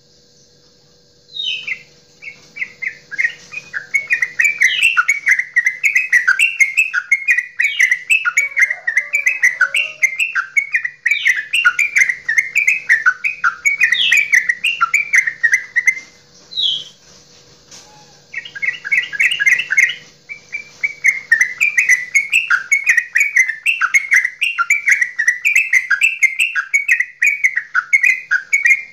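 Yellow-vented bulbul (trucukan) singing its long bubbling 'goklikan' song: a rapid, unbroken run of chattering, warbling notes. It starts about a second and a half in and pauses briefly twice around the middle. A faint steady hum sits underneath.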